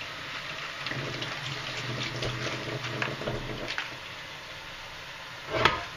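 Kitchen tap running into a stainless steel sink while lettuce leaves are rinsed and shaken under the stream, water splashing steadily. A brief louder knock about five and a half seconds in.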